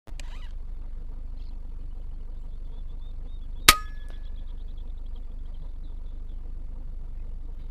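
A PCP air rifle firing a single shot about halfway through: one sharp crack with a short ring after it, over a steady low rumble.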